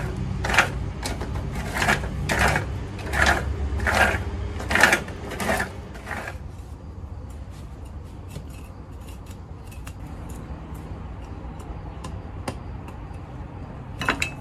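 Rhythmic scraping strokes of a tool digging into soil, about one and a half a second, as ground is dug out to level a spot. They stop about six seconds in, leaving a few faint clicks and one sharper click near the end.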